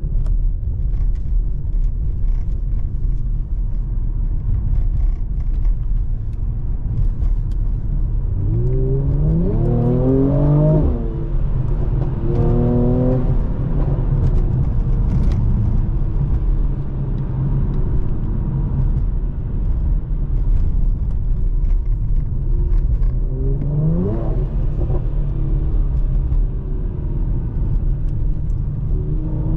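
Mercedes C43's 3.0-litre twin-turbo V6 on the move, a steady low rumble with road noise. The engine note climbs under acceleration about nine seconds in, drops at a gearshift, holds briefly, then climbs again around twenty-four seconds and once more at the very end.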